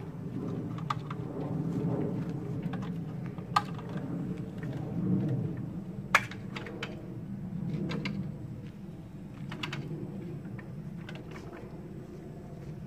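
Aluminium folding multi-purpose ladder being unfolded and stood up as an A-frame: a handful of sharp metal clicks and clanks from its joints and rails, the loudest about three and a half and six seconds in, over a steady low background rumble.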